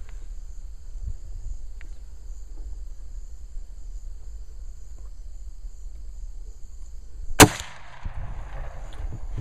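A single .30-30 rifle shot about seven and a half seconds in, by far the loudest thing, with a short echo trailing after it. A steady high-pitched insect chorus runs underneath.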